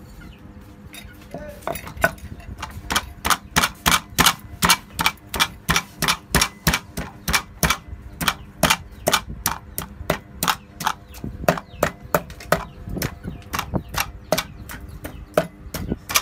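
Rapid, evenly spaced sharp strikes of food preparation, about three a second, starting a second or two in and running on steadily, over a low steady hum.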